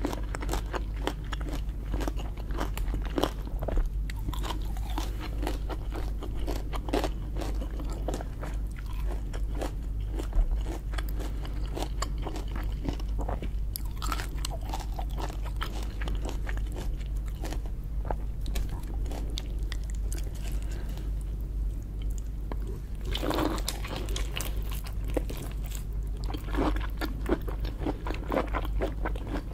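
Close-miked mouth sounds of eating lobster: irregular crunching, biting and wet chewing throughout, with a louder run of crunches a little over three quarters of the way in. A steady low hum lies underneath.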